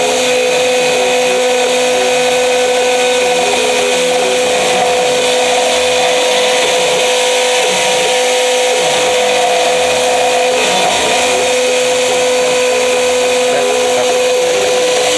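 CNC router spindle running at a steady high-pitched whine while the router cuts a carving.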